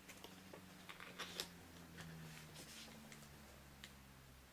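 Near silence: a few faint light clicks over a low steady hum.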